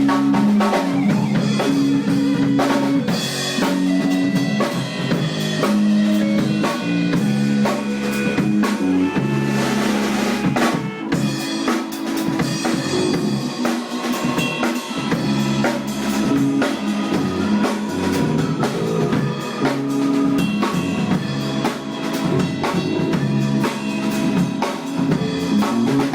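Band music driven by a drum kit, with snare and bass drum hits over a bass line and other instruments.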